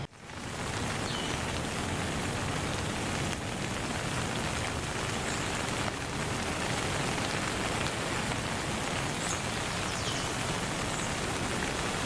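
Steady rain falling, a dense even hiss that fades in at the start, with a few faint high chirps now and then.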